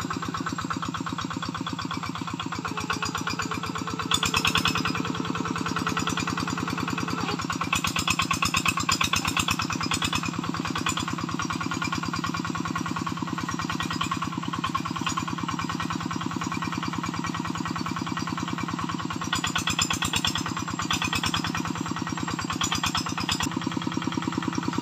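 Homemade two-wheel hand tractor's engine running steadily under load as it pulls a trailer of wood along a muddy track, with a few short, louder spells of clatter.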